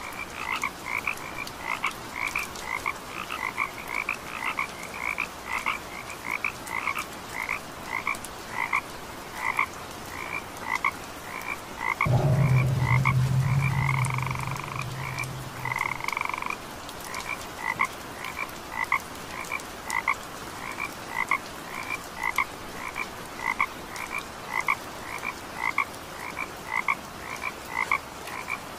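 A frog croaking over and over in short calls, about two a second. Partway through, a loud low hum starts suddenly and fades away over a few seconds.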